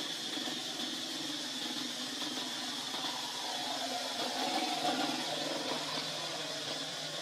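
Steady ambient hiss with no distinct events, swelling slightly about halfway through.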